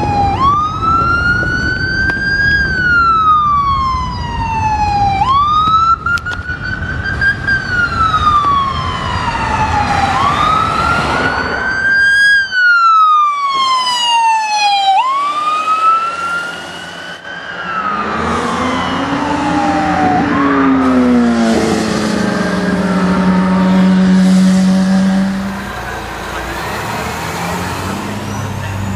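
Ambulance siren wailing in long sweeps, each rising quickly and falling slowly, about every two and a half seconds, over traffic noise. Past the midpoint it changes to a mix of lower gliding tones with a loud deep steady tone for several seconds.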